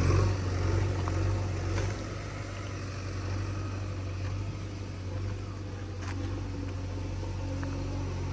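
Diesel engine of a JCB 3DX backhoe loader running steadily. It is louder for the first two seconds, then eases to a lower, even level, with a few faint knocks over it.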